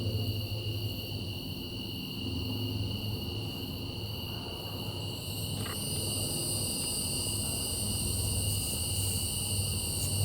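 Chorus of night-singing insects, which the uploader takes for cicadas: steady high-pitched trilling in several pitches, with a still higher one joining about halfway through, over a low steady hum.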